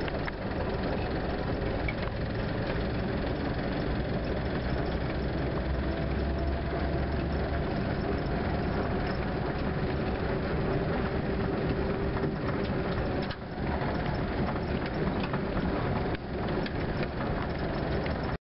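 Vintage military vehicle driving along a gravel road, heard from on board: a steady engine and drivetrain drone with a faint humming tone and rattling from the body, dipping briefly about two-thirds through.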